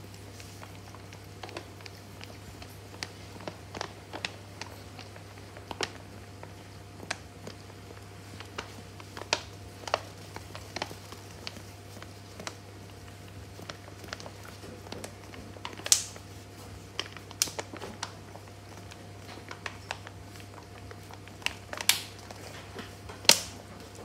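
Dog licking yoghurt out of a hand-held clear plastic cup: irregular wet licks and sharp clicks of tongue and muzzle against the thin plastic, with a few louder knocks of the cup in the second half.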